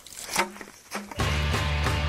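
A few short knocks, then about a second in a segment-intro jingle starts loud, with heavy bass and a steady beat.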